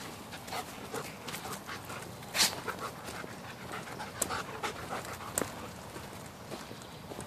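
Footsteps on a dirt forest trail with panting breaths, likely the dogs panting in the heat, and one short, louder brushing noise about two and a half seconds in.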